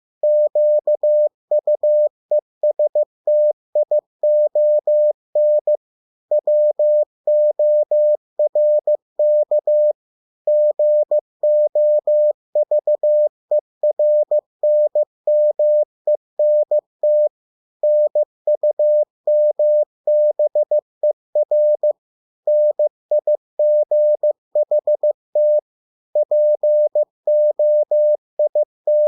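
Morse code sent as a single-pitched beep keyed on and off in dots and dashes at 15 words per minute, spelling out English words with short pauses between them.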